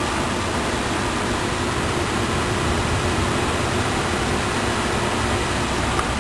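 Steady wind blowing across the microphone: an even rushing noise with a low rumble.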